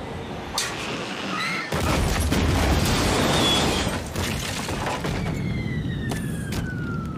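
Cartoon sound effects of a small jet plane crash-landing on a street. Engine noise gives way to a loud crash and explosion about two seconds in, then burning noise with a falling whine near the end.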